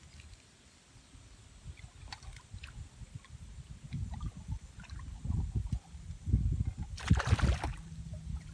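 A hooked smallmouth bass splashing at the water's surface, loudest in a short burst about seven seconds in, over a low rumble of wind on the microphone.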